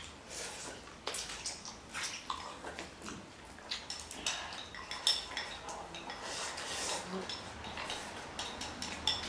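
Chopsticks clicking and tapping against porcelain bowls as several people eat: many light, irregular clicks.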